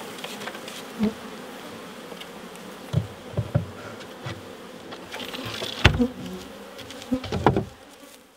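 Honey bees buzzing steadily around an open hive, with several sharp wooden knocks as a plywood board and frames are handled in the wooden hive box; the loudest knocks come around the middle and near the end, and the sound fades out at the end.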